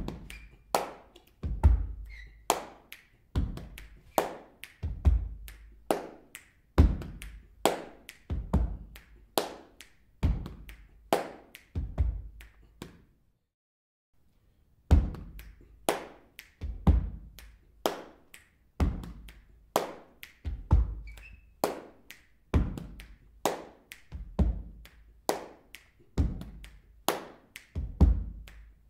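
Sparse funk drum beat with no melody: a low thud and a sharp knocking hit about once a second, with lighter hits between. About halfway through it cuts out for a second and a half, then starts again.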